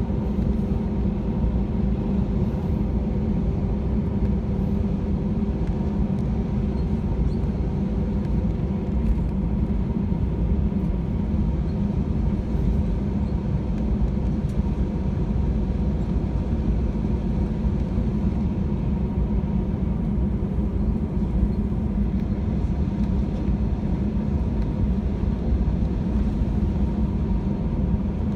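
Steady low rumble inside an Airbus A320's cabin as it taxis after landing, its jet engines at idle. A faint steady hum sits over the rumble.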